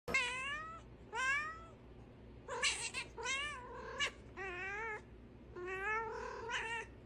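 A domestic cat meowing over and over, about seven drawn-out meows in a row, several of them rising and then falling in pitch.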